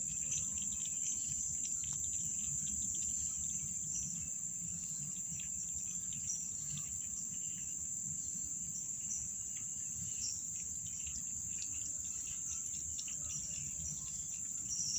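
A kitten lapping water from a bowl in faint, quick licks, under a steady high-pitched insect trill.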